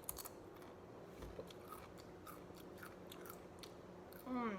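Chewing potato chips, faint crisp crunches at irregular moments. Near the end, a short hum of the voice that falls in pitch.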